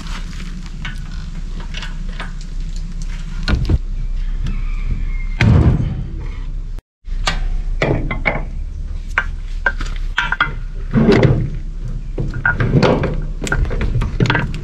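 Repeated metal clunks and knocks from tools and parts as a MerCruiser Alpha One stern drive is being taken apart, over a steady low hum.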